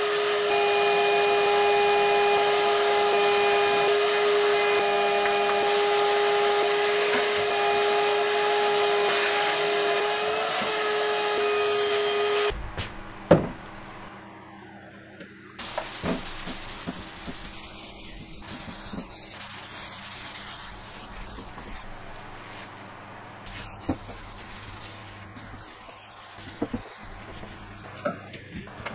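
Workshop vacuum running steadily with a held whine, its hose sucking sanding dust off the sanded drawer tops, and cutting off suddenly about twelve seconds in. After it, quieter rubbing and a few light knocks of wood being handled.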